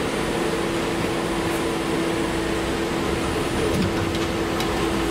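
Steady hum inside a KTM-31 (71-631) tram standing at a stop with its doors open, its onboard equipment and ventilation running, with a constant low tone over an even noise.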